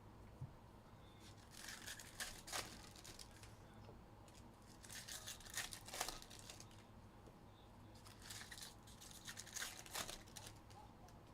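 Foil baseball card pack wrappers being torn open and crinkled by hand, in three short bursts of rustling a few seconds apart.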